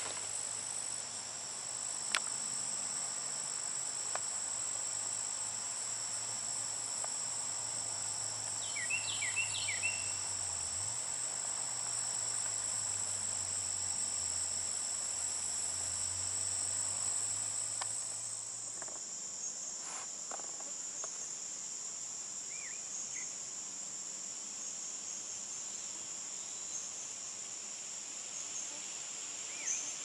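Steady, high-pitched chorus of trilling insects in a summer field, with a few short chirps about a third of the way in.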